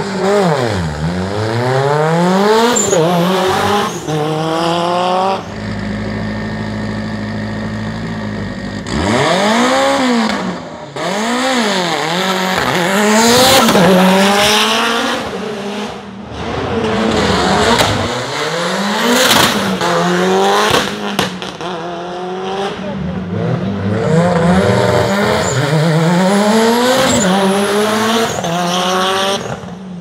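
Hillclimb race car engines accelerating flat out. The pitch climbs through each gear and drops back at every upshift, over and over, with a few seconds of steady engine note about a fifth of the way in.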